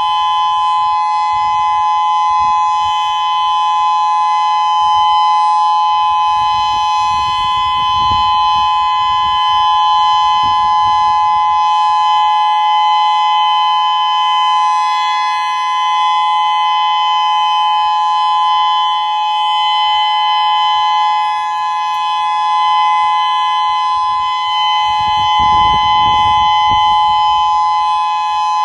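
Federal Signal Modulator 6024 electronic outdoor warning siren sounding a steady tone made of two close pitches held without rising or falling, during a test. A few low rumbles come underneath, about a quarter and near the end.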